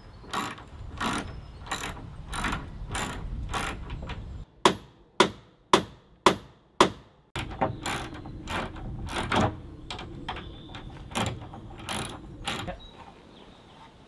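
Hand-tool work on timber cladding boards: a run of even strokes, then five sharp blows about half a second apart near the middle, then more irregular knocks.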